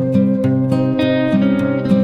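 Background music: plucked acoustic guitar playing a gentle melody over held notes.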